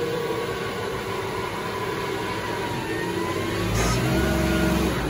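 Tormach 8L CNC lathe running with a steady motor hum, and a rising whine about three seconds in as the axis motors drive the carriage and tool post back in toward the workpiece.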